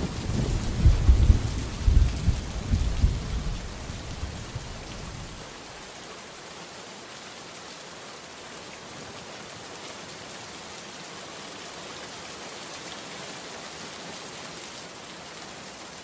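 Steady rain falling, with thunder rumbling heavily through the first few seconds. The thunder dies away about five seconds in, leaving an even hiss of rain.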